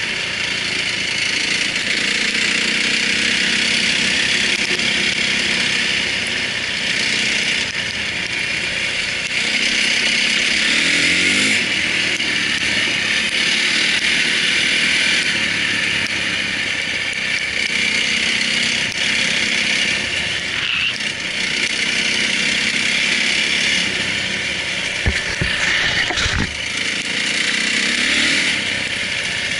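Enduro motorcycle engine running while riding a rough dirt track, revving up and down, under a steady rushing noise. A couple of sharp knocks come near the end.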